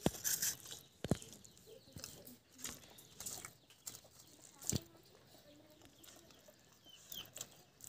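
Hand-eating sounds: scattered clicks and smacks as rice is mixed by hand on a steel plate and eaten, with chickens and small birds calling faintly in the background.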